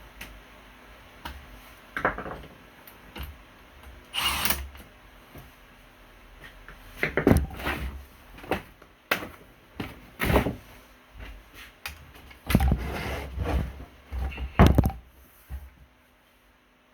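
Hands working with tools and parts: a series of separate knocks, clicks and short scraping sounds, irregularly spaced a second or two apart.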